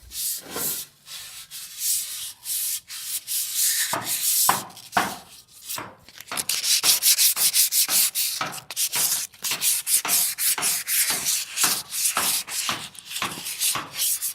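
Sandpaper rubbed by hand over painted aluminium scooter handlebars, stripping the old paint: a run of scratchy back-and-forth strokes, sparser and fainter at first, then quicker and louder from about halfway through.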